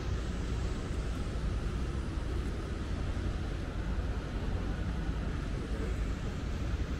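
Steady outdoor city ambience with a low rumble and no single event standing out.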